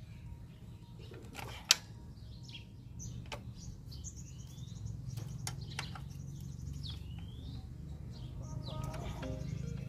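Birds chirping over a steady low background hum, with scattered metal clicks as a hand wrench works the bolts of the scooter's side cover. One sharp clink comes about two seconds in.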